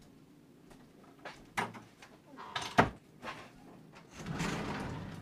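A few sharp clicks and knocks, the loudest just under three seconds in, then a sliding wardrobe door rumbling along its track for about a second near the end.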